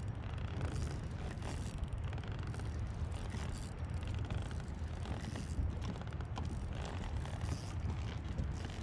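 Steady wind rumble buffeting the camera's microphone.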